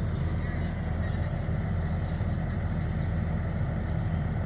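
Skid steer loader's engine running steadily.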